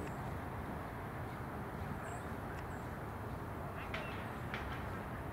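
Steady outdoor background rumble, with a few brief, faint high chirps from a small bird about every two to three seconds.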